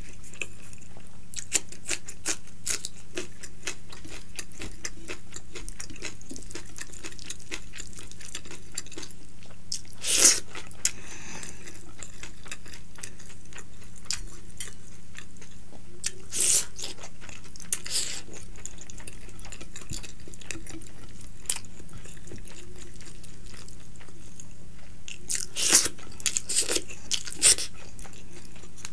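Close-miked chewing and wet mouth sounds of someone eating by hand, with a few louder crunchy bites about 10, 16 and 26 seconds in.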